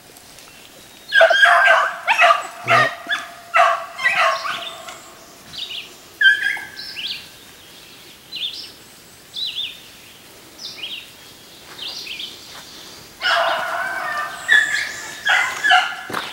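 Hare hounds baying as they run a hare's track, several voices together about a second in and again near the end, with single bays in between.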